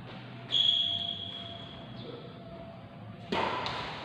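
Badminton rally: racket strikes on the shuttlecock echoing in a large hall. About half a second in there is a sharp hit followed by a high ringing tone that fades, and near the end two quick sharp hits.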